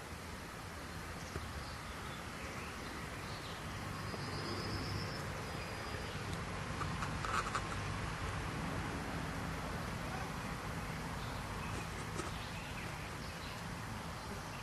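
Steady outdoor background noise with a low rumble, a faint high trill about four seconds in, and a brief louder burst of sound about seven seconds in.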